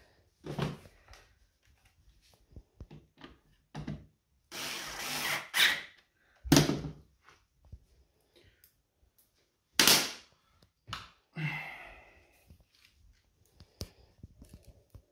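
Knocks and clatters of tools and plastic and metal TV parts being handled, with a cordless electric screwdriver running for about a second a little before the middle.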